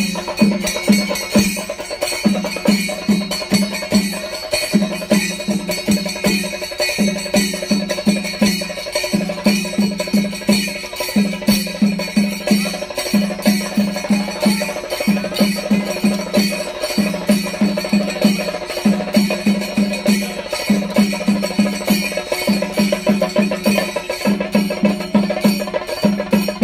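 Kerala temple percussion ensemble playing. A pitched drum beats in short groups of four or five strokes about every two seconds, over a steady rapid clatter of strokes and a continuous high ringing.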